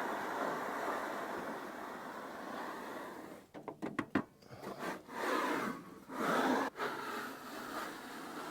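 Sawn wood rubbing and scraping in a few short, uneven strokes from about three and a half to seven seconds in, over a steady hiss.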